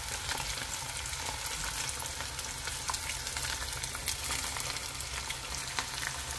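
Breadcrumb-coated chicken pieces deep-frying in hot oil in a frying pan: a steady sizzle full of small crackles and pops, with a fork now and then turning the pieces.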